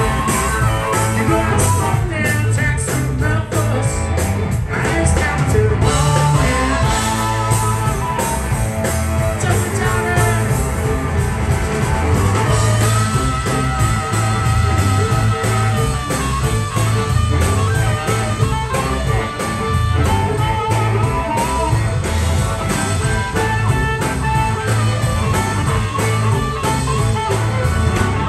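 Live blues band playing an up-tempo number with electric guitar, fiddle, bass guitar and drums, over a steady beat; harmonica is played near the end.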